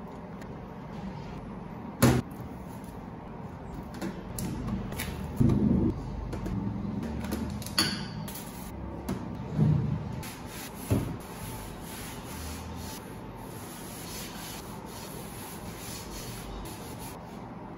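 Boxes, jars and packets being moved and set down in a kitchen drawer, with a few knocks and clatters, the sharpest about two seconds in. Later comes a quieter stretch of cloth rubbing over the drawer fronts.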